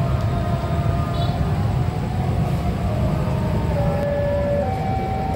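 Steady rumble of heavy road traffic, with a siren over it. The siren holds one note at first, then about four seconds in switches to a two-tone hi-lo pattern, changing about every 0.7 s.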